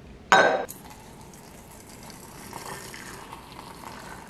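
A glass lid is set down with a single sharp clink about a third of a second in. Then hot water pours steadily into a glass teapot over loose tea leaves.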